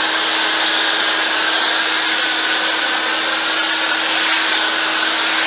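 Pressure washer foam cannon with a 1.1 mm orifice spraying a steady, hissing jet of snow foam, with a steady hum under it; the spray cuts off abruptly at the end.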